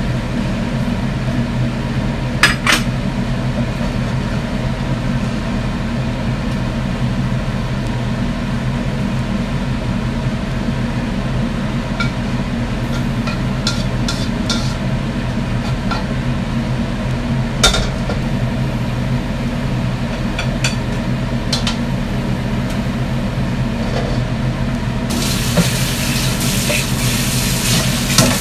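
Steady kitchen hum from the range hood fan over a lidded wok on a gas burner, with a few sharp clinks of dishes and utensils. Near the end the tap starts running with a steady hiss.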